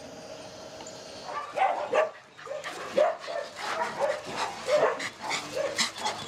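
Dogs barking in quick succession, starting about a second and a half in.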